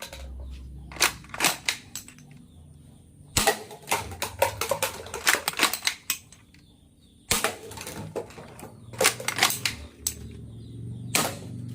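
Toy gun firing and being worked: bursts of sharp clicks and snaps with short pauses between them.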